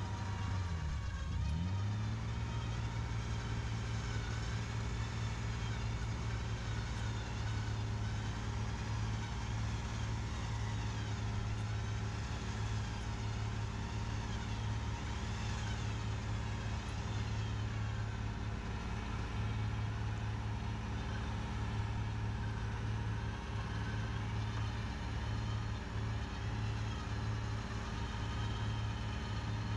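Pickup truck engine running steadily under a snow recovery pull; its note dips briefly and recovers about a second in.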